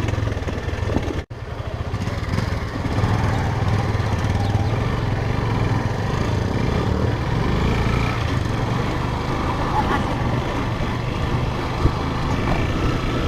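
Motorcycle engine running steadily while riding, with a brief break about a second in.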